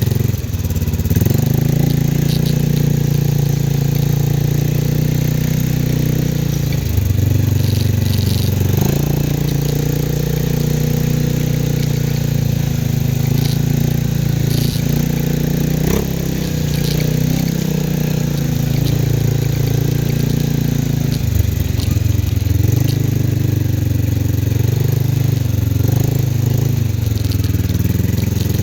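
CFMoto 500 ATV engine running under way, its pitch stepping up and down several times as the throttle changes, with occasional rattles and clicks.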